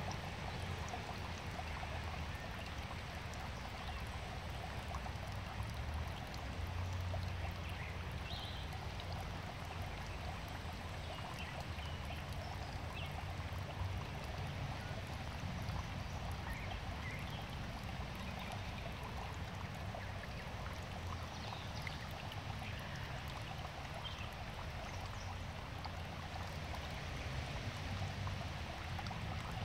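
Running water, a steady, continuous trickle and splash, as from a garden pond's water flow.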